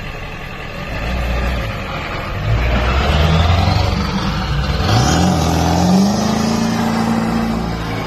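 Pickup truck accelerating hard from a stop on a wet road, its rear wheels spinning. The engine grows louder through the first seconds, its pitch rises sharply about five seconds in, and it then holds a high steady rev.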